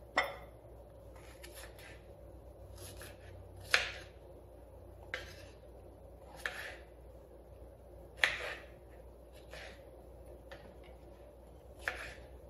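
Kitchen knife slicing strawberries on a wooden cutting board: irregular knocks of the blade on the board, about half a dozen louder ones with softer cuts between.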